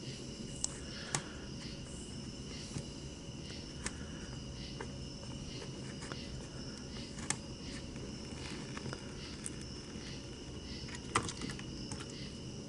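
A few sharp metallic clicks and taps at irregular intervals, loudest about a second in, midway and near the end, as a socket on an extension works the oil drain plug loose. They sound over a steady high chirping of insects.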